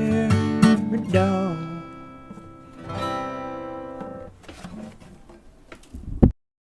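Acoustic guitar playing the closing chords of a song; a chord about three seconds in rings out and fades. Just after six seconds there is a short knock, and the sound cuts off abruptly to silence.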